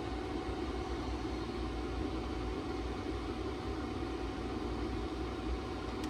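Small cooling fans built into a LiPo battery charging case, running steadily: a constant airy hum with a faint steady tone.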